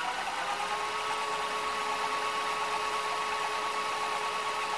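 White Westinghouse WVCP-8000 VHS player rewinding a tape at full speed: a steady whine of the reel drive over a whirring hiss. The rewind idler is turning the reels properly, with no sign of the stalling idler fault.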